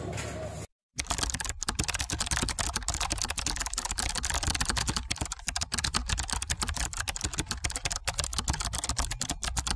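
Typing sound effect: a fast, unbroken run of keyboard clicks that starts about a second in, right after a brief cut to silence, and runs on as text is typed out on screen.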